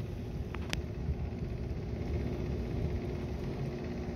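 Distant thunder giving a steady low rumble that swells slightly midway, with two short clicks under a second in.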